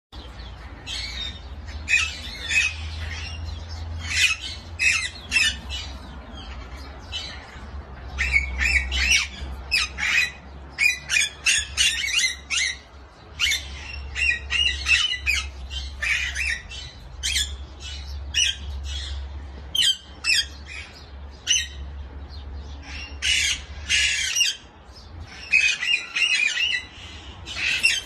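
A flock of Alexandrine parakeets squawking: loud, harsh screeches, singly and in quick runs, repeated all the way through.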